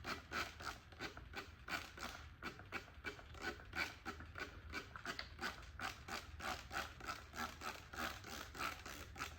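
Water rinse of a freshly brush gold-plated part: quick, even swishing strokes, about three a second.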